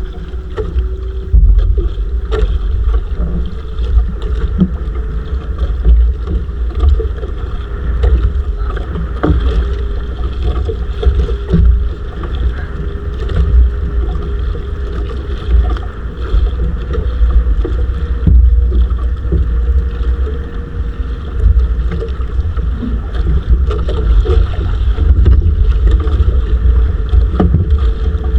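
A small fishing boat's engine running steadily, with wind buffeting the microphone and scattered knocks.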